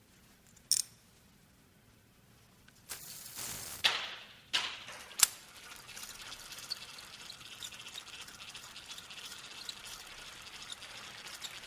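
Fishing rod reel handled and turned: a few sharp clicks, a second-long rush of noise, then a steady whir with fine rapid ticking as the reel spins.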